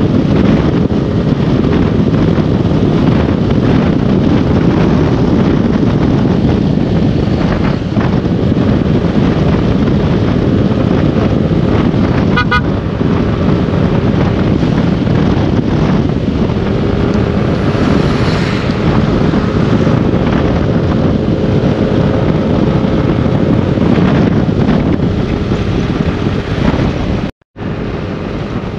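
Wind noise on the microphone and a motorcycle engine running while riding at road speed. The wind is a steady, loud rush that drowns most of the engine's tone. The sound drops out briefly near the end.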